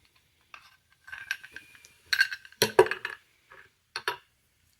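Small metal parts of a gutted disc detainer padlock clinking and rattling as they are handled, with a few sharper clicks in the middle and a last pair of clicks near the end.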